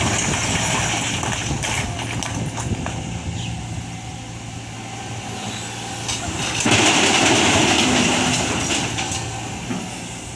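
Tata Hitachi ZAXIS 120H excavator's turbocharged Isuzu diesel engine running steadily. About seven seconds in it grows louder for a couple of seconds under working load. A few light knocks sound now and then.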